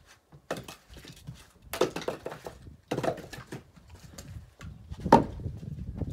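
Split firewood knocking and clattering as pieces land on a woodpile, about four times, the loudest sharp knock about five seconds in.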